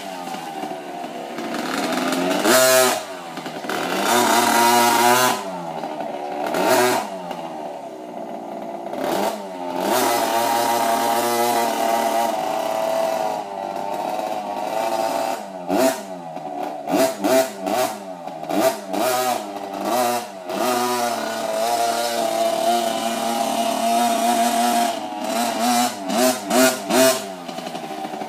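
50cc two-stroke mini dirt bike engine being ridden, its pitch rising and falling with the throttle. In the second half it is blipped in many short, quick bursts.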